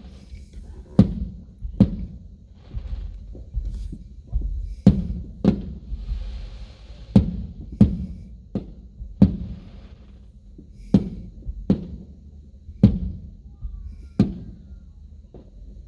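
Aerial firework shells bursting in a steady barrage: about a dozen sharp booms at irregular intervals of half a second to two seconds, each with a short rumbling tail. There is a brief hiss of crackle around the middle.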